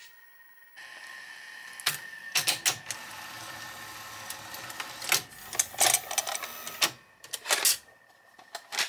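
Sony SLO-1400 Betamax deck's tape transport running with a steady mechanical whir, set off by several loud clicks and clunks from the mechanism.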